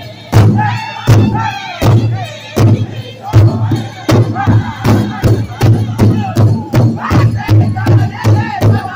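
A powwow drum group singing in loud, high voices while striking a large shared hide drum in unison. The beats come about one a second for the first few seconds, then quicken to a steady beat of about three a second.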